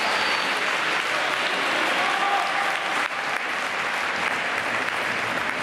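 Crowd applauding, a steady wash of clapping.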